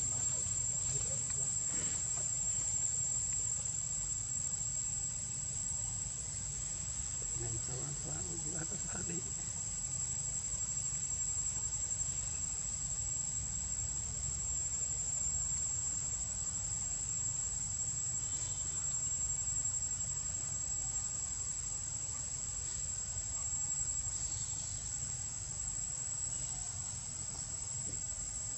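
Insects trilling in a steady, high-pitched, unbroken drone, over a low background rumble.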